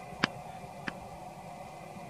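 Two short, sharp clicks about two-thirds of a second apart over a steady faint background hum.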